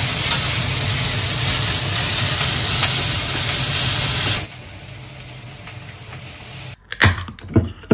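Yakisoba sizzling loudly in a frying pan as it is stirred with chopsticks, cutting off suddenly a little over four seconds in. After that comes quieter room sound, then a few sharp clicks or knocks near the end.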